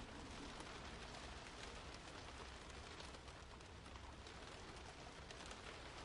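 Faint, steady rain: an even hiss with scattered drop ticks.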